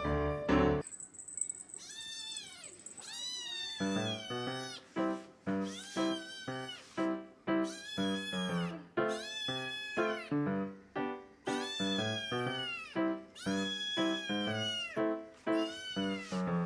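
Two-month-old short-legged Munchkin kitten meowing over and over, high-pitched calls that rise and fall about once a second: a hungry kitten crying for its food. Piano music plays underneath, dropping out briefly near the start and coming back about four seconds in.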